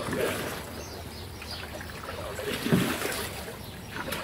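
Wooden canoe paddle pulled through the water of a paddling tank, splashing and churning the water, with two stronger pulls about two and a half seconds apart.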